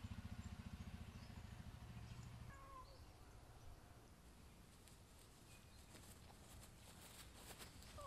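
Quiet outdoor ambience with a low, fast pulsing hum for the first two and a half seconds and a few faint high chirps. At the very end a small dog starts to whimper.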